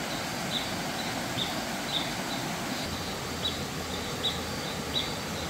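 Outdoor jungle ambience: a steady hiss of background noise with a short high chirp from a calling animal, repeating roughly once a second.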